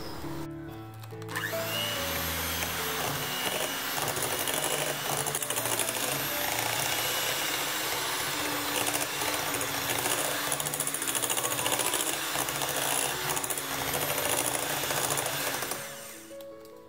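Netmego electric hand mixer running, its beaters churning thick cookie dough in a glass bowl. It starts about a second in, runs steadily, and stops near the end.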